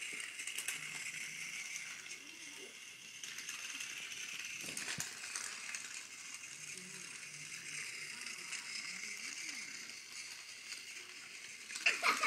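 Battery-powered Thomas the Tank Engine toy train running around its plastic track: a steady whirring rattle of the small motor and wheels, with a single knock about five seconds in.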